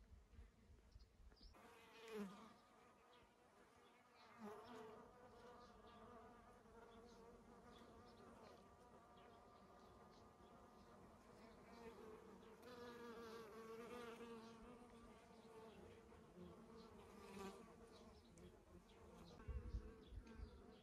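A flying insect buzzing faintly, the buzz starting about a second and a half in and swelling and dipping in pitch and loudness as it moves about. A few low bumps come near the end.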